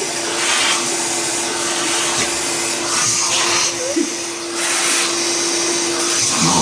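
Vacuum cleaner running, its motor giving a steady hum under a loud rushing hiss that swells and fades several times.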